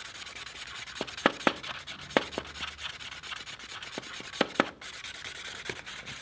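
Green Sharpie permanent marker scribbling back and forth across a paper plate: a steady, dry scratching of the felt tip on the paper, broken by a few sharp ticks, the loudest between one and two seconds in and again past four seconds.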